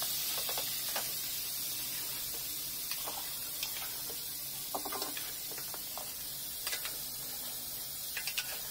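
Metal spatula clicking and scraping against an aluminium pot as raw chicken pieces are stirred into spice paste, over a steady hiss; the clicks come irregularly, a few seconds apart.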